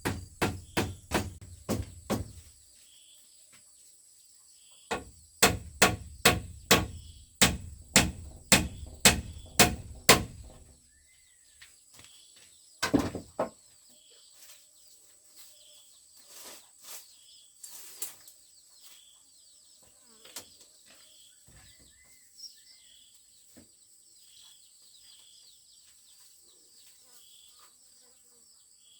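A run of heavy rhythmic blows, about two to three a second, in two bursts with a short pause between and one more blow a little later. Faint bird chirps and a steady high insect drone sound behind them.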